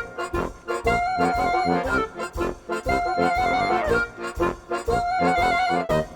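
Background music: a bouncy, repeating tune with accordion-like or brass-like melody over a steady beat.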